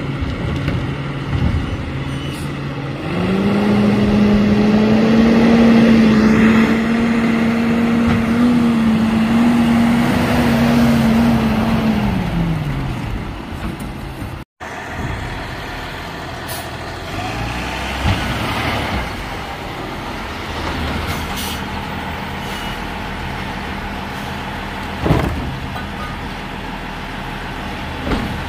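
Freightliner M2 garbage truck with a Labrie Helping Hand side-loading arm running, with a steady whine that starts about three seconds in, holds for about ten seconds and then falls away in pitch. After a break the truck runs more evenly, with a short sharp sound near the end.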